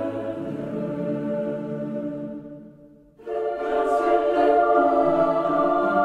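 Choral music in sustained, slow-moving chords, played over a Russian emergency-broadcast test screen. The phrase fades away a little before the middle, and a new, louder phrase starts just after three seconds in.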